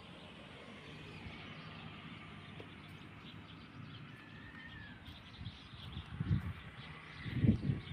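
Quiet outdoor field ambience with a bird's short falling call about halfway through, then a few low rumbling bumps near the end.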